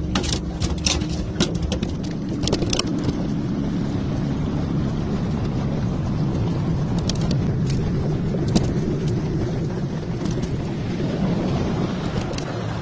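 Boat motor running steadily while trolling, a low rumble throughout. A quick series of knocks and rattles comes in the first few seconds, with a few more clicks later.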